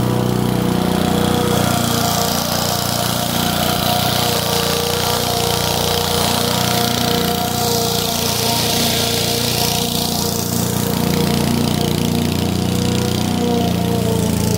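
Honda HRU216 self-propelled mower's single-cylinder engine running steadily under load as it cuts overgrown grass and weeds with its swing blades. A higher hiss swells about halfway through as the mower passes close, then eases off.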